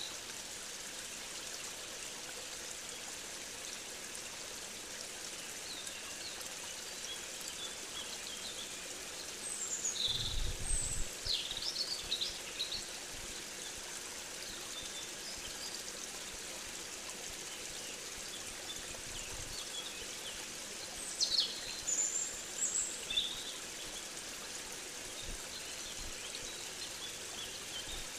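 Outdoor nature recording: a steady hiss of running water with wild birds calling in short high chirps. The chirps come in two bunches, a third of the way in and about three quarters through, and a brief low rumble comes with the first bunch.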